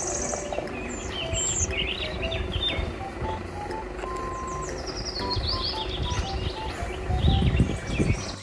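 A Mercedes-Benz box truck's diesel engine running low as the truck moves slowly, the rumble swelling near the end. Birds chirp throughout, and a simple tune of short notes plays alongside.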